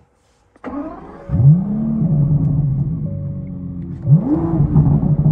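2023 Aston Martin V12 Vantage's twin-turbocharged 5.2-litre V12 being started: a click, a brief crank, then the engine catches just over a second in with a rising flare in revs and settles into a steady idle. About four seconds in comes one short throttle blip, the revs rising and falling back.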